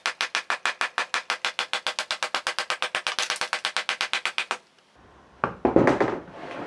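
Small hammer tapping rapidly along the edge of thin aluminum sheet, about ten light blows a second, dressing down the aluminum skin of a camper door. The tapping stops about four and a half seconds in, and a louder knock and clatter follow near the end.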